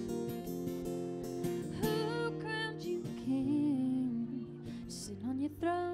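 Acoustic guitar playing, with a woman's singing voice coming in about two seconds in.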